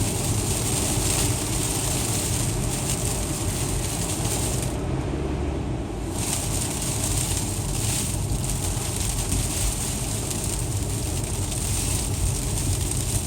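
Car interior noise while driving on a snowy, icy road: a steady low rumble of engine and tyres under a constant hiss. The hiss briefly thins out about five seconds in.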